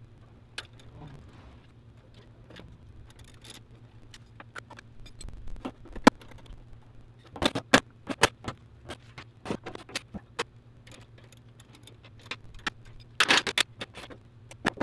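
Scattered sharp clicks and metallic clatter of tools and car parts being handled in an engine bay, growing busier partway through. Near the end a short dense burst comes as a cordless driver is put to a bolt at the wiper cowl.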